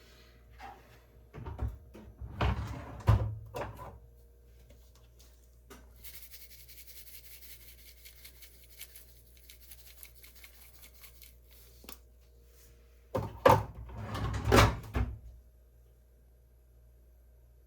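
Kitchen handling noises: two short bursts of knocks and clatter, as of items being set down or a cupboard or drawer being worked, with a faint high hiss in between.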